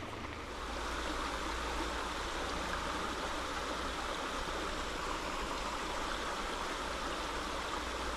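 Creek water rushing steadily over the streambed, a little louder from about half a second in.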